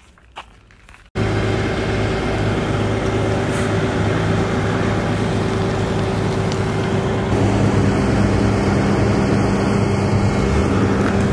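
Flatbed tow truck's engine running steadily with a low hum while the car is winched up the tilted bed. It comes in suddenly about a second in and grows slightly louder about seven seconds in.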